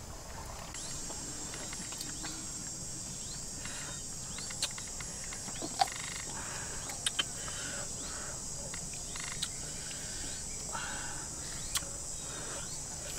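Insects in the forest buzzing steadily at a high pitch, coming in about a second in, with a few sharp clicks and knocks scattered through.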